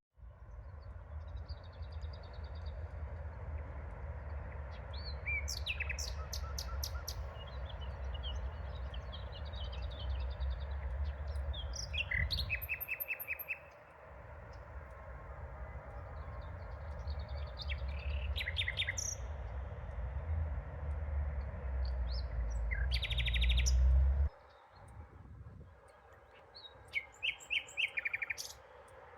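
Songbirds chirping, in several separate quick runs of high, rapidly repeated notes and trills with gaps between them. Beneath them runs a steady low rumble that cuts off suddenly about three-quarters of the way through.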